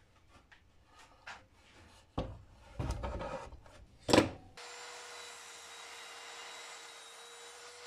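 Wooden board knocked and shifted into place on a sliding miter saw and clamped down, with a sharp knock about four seconds in. Then the saw's electric motor starts running steadily with a high whine.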